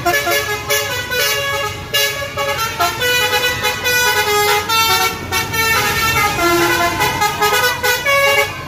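A bus's 'telolet basuri' multi-tone musical horn playing a quick melody, its held notes stepping from pitch to pitch every fraction of a second, over a low engine rumble.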